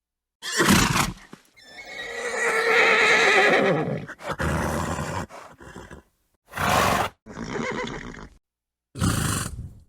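A horse neighing: one long, wavering whinny of about two and a half seconds, among several short breathy snorts, each separated by dead silence.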